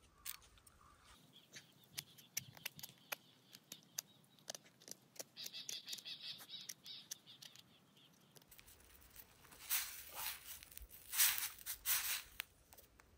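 A knife blade whittling a small wooden twig into a spoon: a run of short, light scraping clicks as shavings come off. In the last few seconds, louder scraping as the wooden stick stirs noodles in a metal pan on the camp stove.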